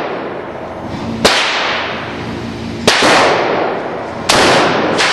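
Three loud gunshots, about a second and a half apart, each ringing out in a long echo off the walls of an indoor range.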